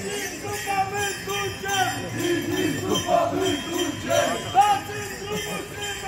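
Many bells jingling and clanking in a quick, regular dance rhythm, with crowd noise underneath.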